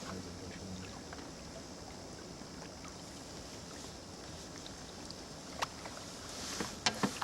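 Steady rush of river water with a few light ticks, and a cluster of sharp clicks and knocks near the end.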